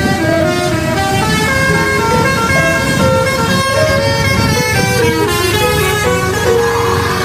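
Telolet multi-tone musical horn on an odong-odong mini tourist train playing a melody of short stepped notes, over the vehicle's engine running.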